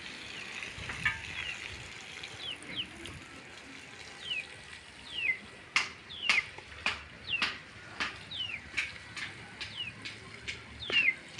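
Birds chirping: a run of short, high chirps, each dropping in pitch, repeated every half second or so, with a few sharp clicks in the middle.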